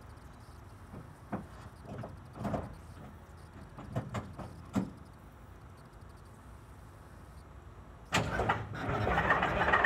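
A few short knocks, then about eight seconds in a Detroit Diesel 8V-71 two-stroke V8 diesel cranks and catches on a cold start, its running noise building toward the end.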